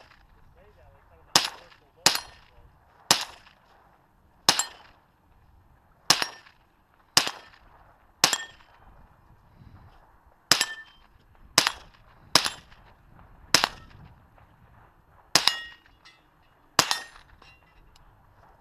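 Handgun firing a string of thirteen shots at an uneven pace, mostly about a second apart with a few longer pauses of one to two seconds; each shot is a sharp crack with a short ring after it.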